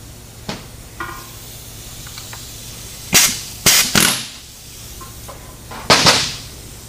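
Compressed air from a shop air-line blow gun: three short blasts in quick succession, then a longer one near the end, after a couple of light clicks at the bench.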